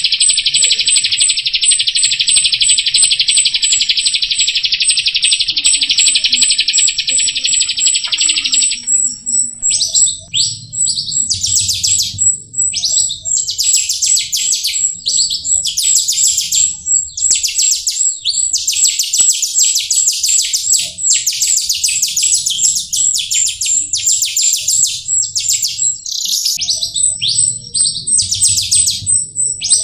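Jalak rio starling singing: a fast, unbroken chattering trill for about the first nine seconds, then a run of short, varied chattering phrases with brief gaps. A thin, very high note pulses steadily throughout.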